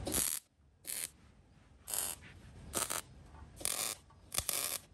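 A MIG welder laying quick tack welds: about six short crackling bursts, roughly one a second, each cut off after a fraction of a second.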